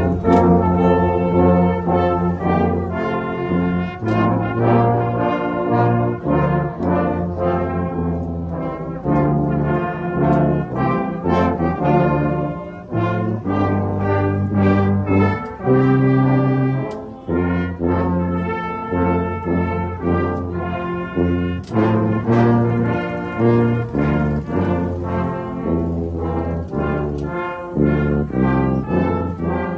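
Salvation Army corps brass band playing a tune in full sustained chords, with a deep bass line moving under the melody.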